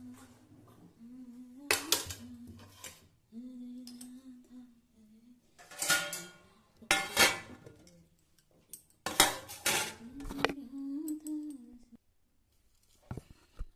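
Kitchen utensils and pots clattering in several short, loud bursts, with a person humming a low, wavering tone in the gaps between them.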